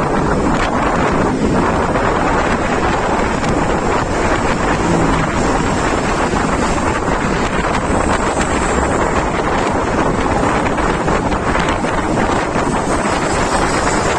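Heavy wind buffeting the microphone: a loud, steady rush and rumble that does not let up.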